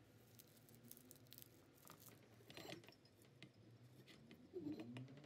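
Near silence, broken by two faint rustles of fresh parsley and celery leaves being handled and pressed down into a glass jar, about two and a half and four and a half seconds in.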